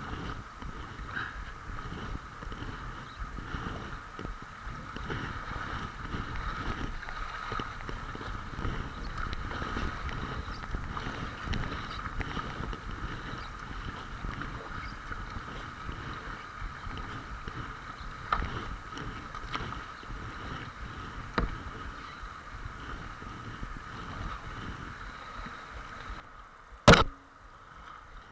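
Water rushing and splashing past a kayak's hull as it runs down shallow riffles, with a few sharp knocks. Near the end the water noise drops away suddenly and one loud knock follows.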